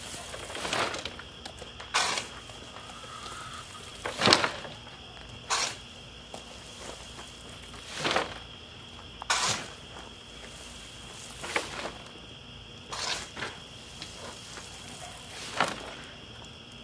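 A shovel scooping wood chips from a pile and tossing them into a garden dump cart, about ten swishing scoops a second or two apart. A steady high insect trill runs underneath.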